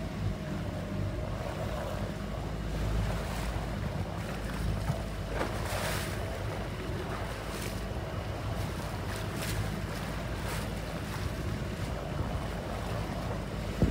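Wind buffeting the microphone over choppy open water, with a steady low rumble and waves splashing against the boat's hull a few times around the middle.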